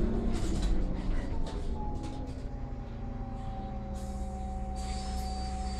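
Interior of an Irisbus Citelis natural-gas (CNG) city bus slowing to a stop. Rattles and knocks and a falling drive pitch give way to the engine idling with a steady hum and a faint steady tone. Near the end, a high electronic beeping starts, repeating rapidly.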